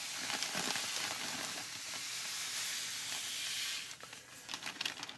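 Sand pouring out of a bag onto a tabletop: a steady hiss of streaming grains that stops about four seconds in, followed by a few scattered light ticks.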